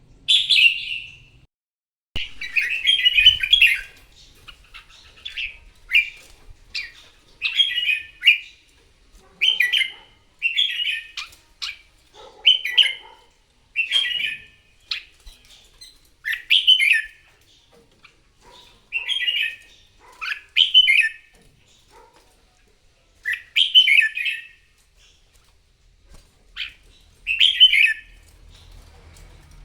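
Red-whiskered bulbul singing its loud competitive ('fighting') song: short, bright, warbled phrases repeated about once a second, with a couple of short pauses.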